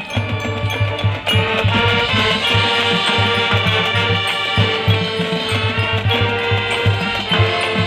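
High school marching band playing a Spanish bullfight-themed show: sustained brass chords over a steady low drum beat, with percussion ticking on top.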